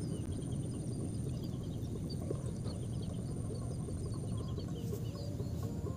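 Birds chirping, short repeated calls scattered through, over a steady low rumble. A thin, high steady whine runs underneath and stops about four seconds in.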